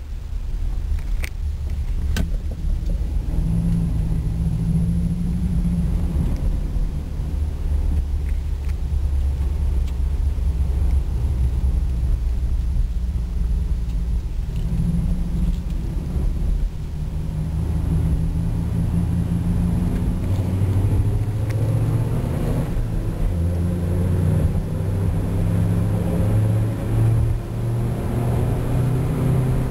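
A car running on the highway, its Flowmaster aftermarket exhaust giving a low rumble over steady tire road noise from Yokohama Avid tires. Over roughly the last ten seconds the engine note climbs steadily as the car speeds up.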